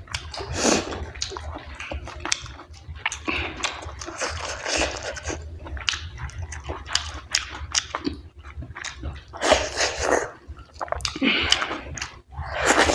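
Close-miked mukbang eating sounds: a person chewing dhido and chicken curry with wet smacking mouth noises and frequent short clicks, louder swells about ten seconds in.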